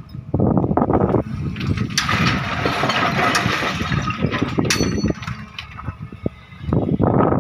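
Excavator's diesel engine running under load, with rock and soil clattering as the bucket digs and dumps.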